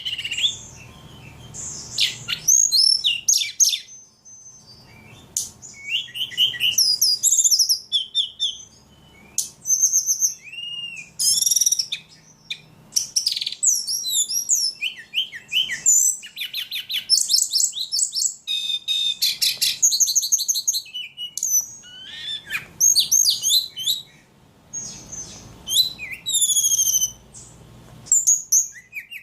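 Ledekan songbird singing busily: quick high chirps and trills in phrase after phrase, with only short pauses between them.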